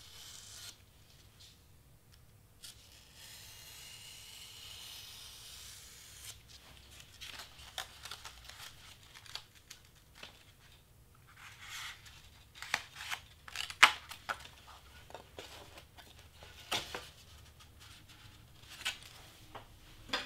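A craft knife drawn through white cardstock on a self-healing cutting mat: a faint steady scrape in the first few seconds, then a busy run of short sharp cuts and rasps from about a third of the way in, the loudest a little past the middle.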